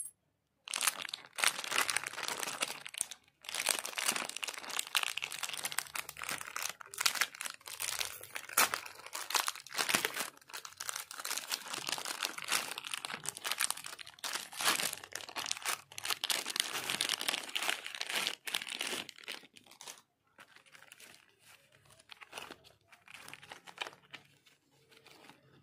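Plastic wrapper of a Britannia Bourbon biscuit pack crinkling and tearing as it is handled and opened by hand: dense, continuous crackling for most of the time, then softer, sparser crinkles for the last few seconds.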